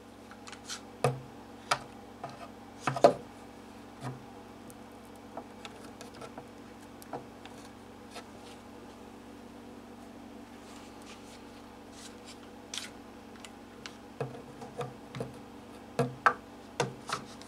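Scattered light clicks and knocks of clamps and parts being handled during a glue-up, a few in the first seconds and a quicker run of clicks near the end, over a steady low hum.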